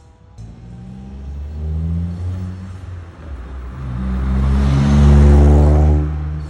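Daihatsu Copen LA400K with a Rosso Modello COLBASSO Ti-R aftermarket muffler, its turbocharged three-cylinder engine accelerating. The exhaust note rises, dips briefly about three seconds in, then climbs steeply to its loudest a couple of seconds later before easing off near the end.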